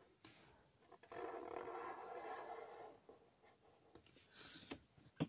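Black felt-tip marker drawing on paper, faint. A longer, louder stroke with a steady tone runs from about a second in for two seconds, then short scratchy strokes and a sharp click near the end.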